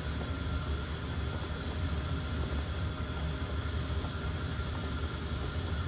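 Saucepan of potatoes in salted water at a vigorous, foaming rolling boil on a gas burner: a steady bubbling with a low rumble.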